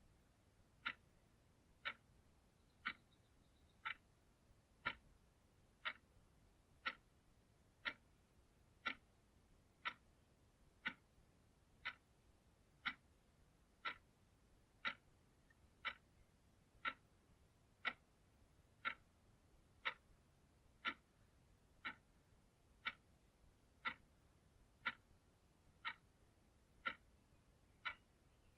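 A clock ticking steadily, one sharp tick per second, each tick much like the last.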